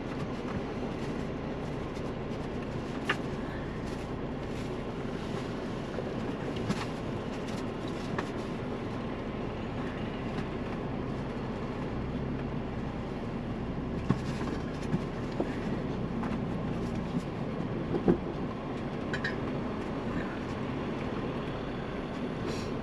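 Ford Bronco crawling slowly over a rocky trail: a steady low engine and drivetrain rumble, with scattered knocks and clunks as the tyres and suspension work over the rocks.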